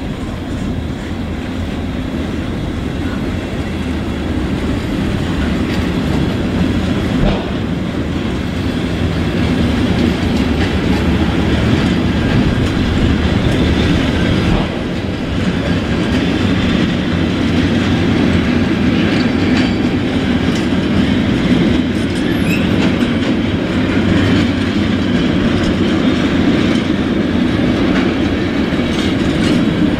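Container freight train rolling slowly past, its wagon wheels clattering over rail joints and points in a steady rumble. The sound grows gradually louder as the locomotive draws near.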